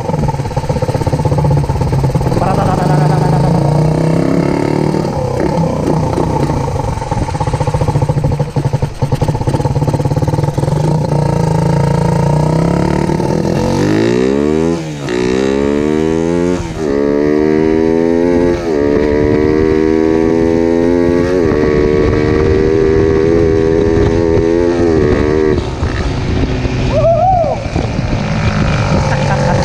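Suzuki Raider 150's single-cylinder four-stroke engine, running on a newly fitted Koso EVO 30 mm flat-slide carburettor, heard from the saddle while riding. It drones steadily at first, then about halfway through it revs up hard through the gears, the pitch climbing and dropping back at each shift roughly every two seconds, before settling to a steady cruise.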